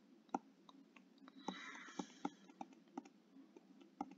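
Faint, irregular clicks and taps from drawing on a digital whiteboard, about a dozen sharp ticks spread unevenly. A short soft hiss comes about one and a half seconds in.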